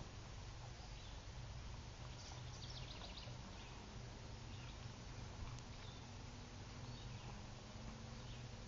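Faint woodland ambience: steady low hiss, with a few short bird chirps, a quick cluster of them about two to three seconds in.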